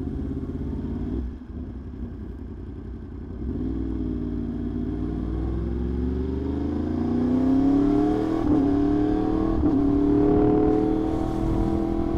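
Yamaha R1's inline-four engine accelerating hard. After a brief lift of the throttle the pitch climbs steadily for several seconds, broken twice near the end by quick upshifts.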